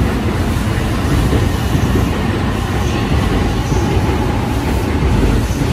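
JR East E531 series AC/DC electric multiple unit running past along the platform: a loud, steady rumble of wheels and running gear on the rails, with a faint whine rising out of it for a second or two partway through.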